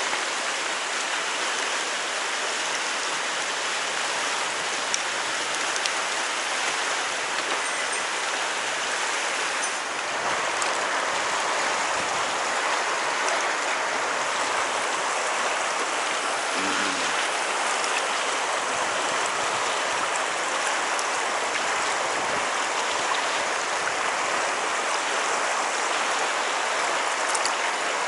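Mountain stream flowing steadily: an even, unbroken rush of moving water.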